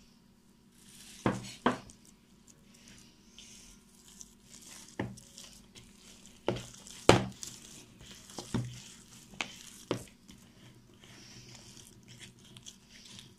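A hand kneading soft poğaça dough in a plastic bowl: quiet squishing and pressing, broken by about eight sharp knocks at irregular intervals, the loudest about seven seconds in.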